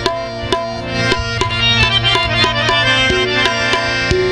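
Instrumental passage of a folk song: a harmonium plays a melody of held notes over a steady beat of hand drums, a dholak among them, at about three strokes a second.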